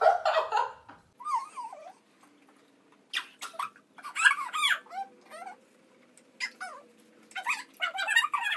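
Two girls laughing hard: high-pitched squeals and giggles in several bursts, with short pauses between.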